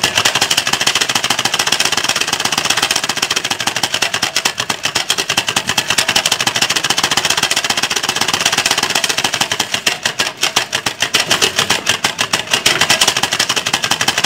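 Stiff card clipped to a bicycle's rear frame flicking against the spinning spokes as the bike is ridden: a loud, rapid, continuous clatter that imitates a motorbike engine.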